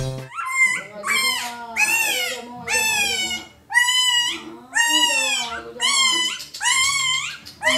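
Maltese puppy yelping and whining in pain while being injected, about eight high calls roughly one a second, each rising then falling in pitch.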